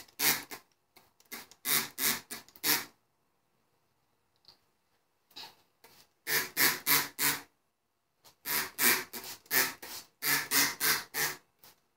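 Trigger spray bottle squirting water onto a t-shirt: quick hissing squirts in runs of about four, with short pauses between runs.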